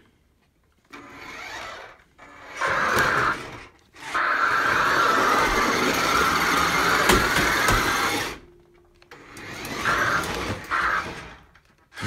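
Sharper Image Burnout Drifter toy RC car's small electric drive motor and gears whirring in bursts as it is driven. The longest run lasts about four seconds in the middle, with shorter bursts before and after.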